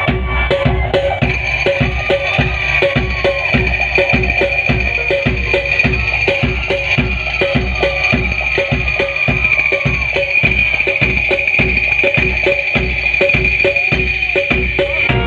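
Qawwali music with a steady percussion beat and deep bass thumps; a held high tone comes in over the beat about a second in.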